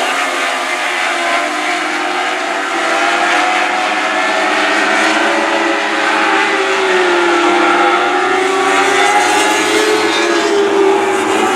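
Several Lightning Sprint race cars running together on a dirt oval, their engine notes overlapping and rising and falling in pitch as they circle.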